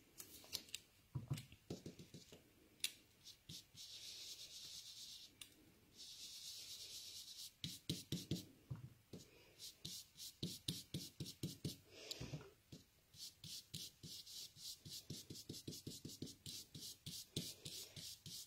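Round ink blending brush swept quickly across card stock over a die, a faint run of soft scratchy brushing strokes, several a second, in bursts with short pauses.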